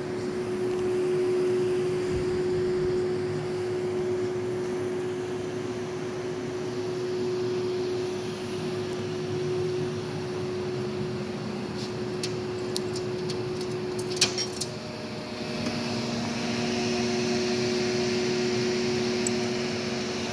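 Powered-on HAAS TM-1P vertical machining center humming steadily with one steady tone. There are a few short clicks about twelve to fourteen seconds in, and the hum takes on a different mix of tones a little after that.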